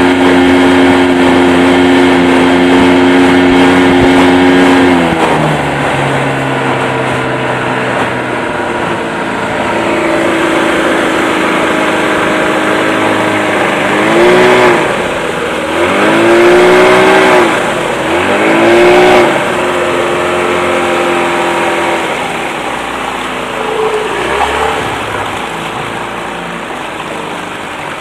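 Early-1990s Mercury 25 hp two-stroke tiller outboard under way at high throttle, its pitch dropping about five seconds in as it is throttled back. Midway the revs rise and fall three times, then the engine settles lower and gets quieter near the end.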